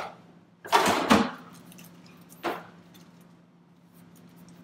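Food packages and containers being handled in an open refrigerator: plastic rustling and clinking in a few short bursts, the loudest about a second in, with a faint steady hum underneath.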